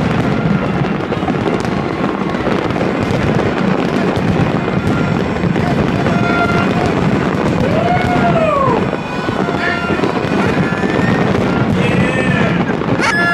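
Fireworks bursting and crackling in a continuous display over a noisy crowd, with a voice whooping up and down in pitch about eight seconds in.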